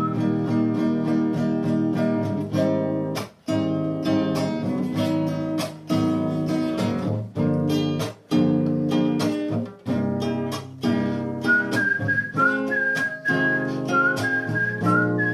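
Acoustic guitar played with plucked chords and a melody, pausing briefly now and then. A thin, high whistling line moving in steps of pitch sounds over it at the start and again from about three quarters of the way in.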